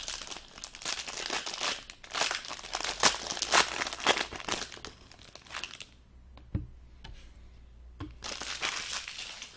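Packaging crinkling and rustling as a hockey card box and pack are opened and handled, nearly continuous for about six seconds, then two light knocks and another burst of crinkling near the end.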